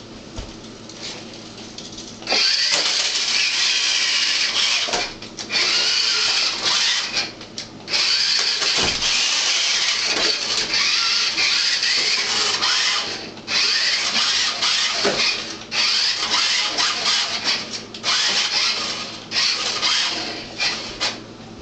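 Radio-controlled toy car's small electric motor and gears whining in repeated bursts as it is driven on and off, starting about two seconds in.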